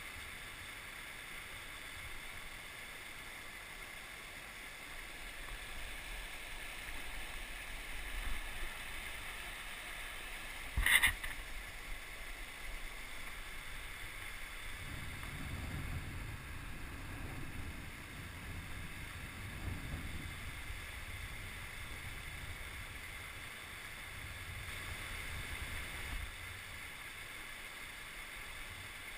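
Steady rush of river water running through rapids and over an old log dam. A single sharp knock about eleven seconds in, and low rumbling in the middle.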